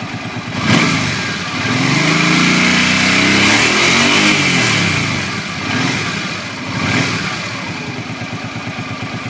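Suzuki Boulevard C50's 800cc V-twin idling and being revved: a short blip about a second in, a longer rev that climbs and falls back from about two to five seconds in, two smaller blips, then back to an even idle. With the stretched rear cam chain replaced, the engine runs without cam chain slap.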